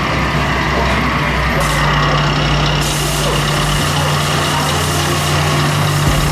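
Electronic sound module of an RC truck playing a diesel truck engine running, its low note shifting pitch a few times, over a steady hum.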